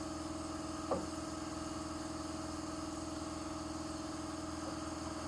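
A steady machine hum, like a motor or engine running, with an unchanging pitch, and one short falling sound about a second in.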